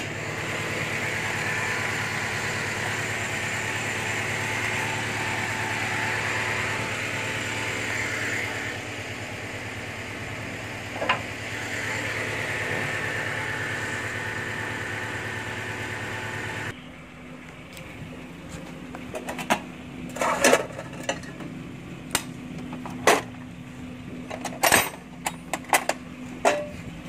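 Toyota Innova engine idling steadily, which stops abruptly about two-thirds of the way through. After that come sharp metallic clinks and knocks of hand tools being handled in a metal toolbox.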